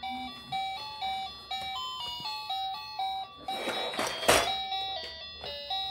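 Simple electronic toy tune of short beeping notes playing from the Luvlap baby walker's musical duck-face play tray, with a rustle and a sharp plastic knock about four seconds in as the walker is handled.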